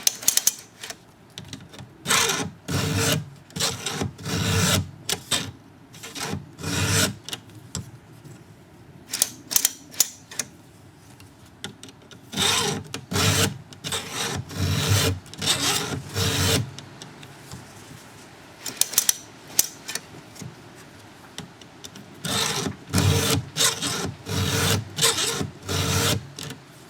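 Round file rasping on chainsaw chain cutters, pushed by hand through a file guide, set for 25 degrees. Runs of short strokes, a little more than one a second, with brief pauses between the runs.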